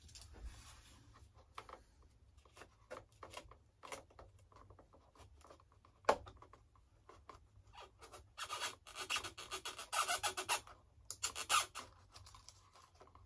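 Scalpel cutting and scraping through hardened glue in the seams of a foam RC jet model: scattered small scrapes and clicks at first, then a run of rapid scraping strokes from about eight seconds in until about twelve.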